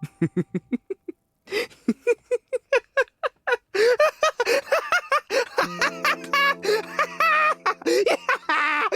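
A person laughing in rapid, pulsing bursts that grow higher and faster; sustained music chords come in about halfway through.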